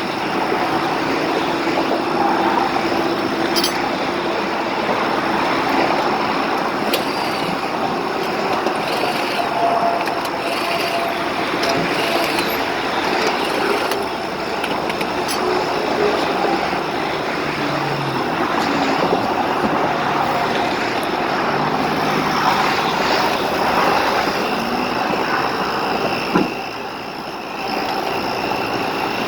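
Steady rush of passing interstate traffic, tires and engines of cars and trucks going by close at hand, with a few sharp knocks at scattered moments.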